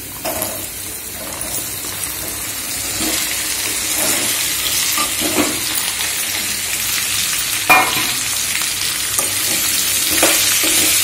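Chopped okra sizzling in hot oil in a kadai, the frying growing louder as the pieces go in. A steel spoon scrapes and knocks against the pan a few times as it is stirred.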